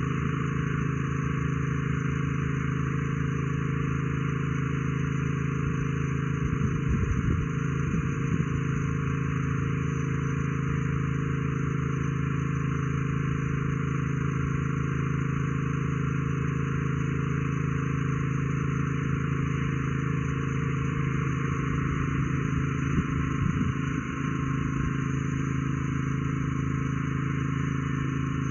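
Steady, unchanging low droning hum, with brief low rumbles about seven seconds in and again near twenty-three seconds.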